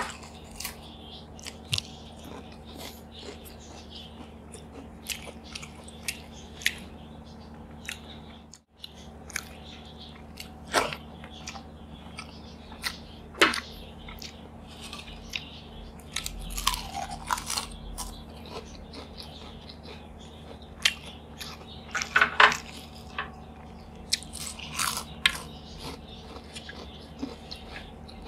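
Close-up eating sounds: a person chewing and crunching fried potato chips, with irregular crisp crunches and softer mouth noises, over a steady low hum. The sound drops out briefly about a third of the way in.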